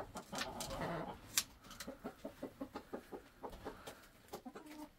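Hens clucking in a coop: a run of short, low clucks, about three a second. A single sharp click comes about a second and a half in.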